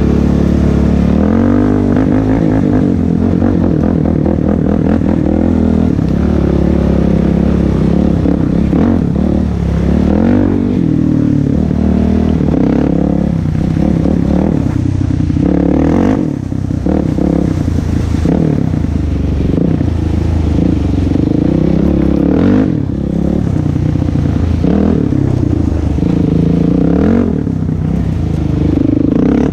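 A Suzuki-built 400 cc single-cylinder four-stroke sport quad (the LT-Z400, also sold as the Kawasaki KFX400) running under load on a rough trail. The engine note rises and falls continually with the throttle, with brief let-offs about sixteen and twenty-two seconds in. It is heard close up from a camera mounted on the quad.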